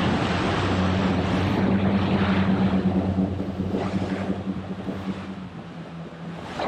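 A small fishing boat's outboard engines run steadily under way, a low even hum, with wind and water rushing over the top. The rush is loudest in the first half and eases toward the end.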